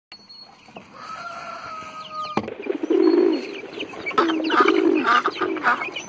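Poultry calling in a rapid series of short, pitched calls that begin about two and a half seconds in. Before the calls there is a faint steady high tone that cuts off with a click.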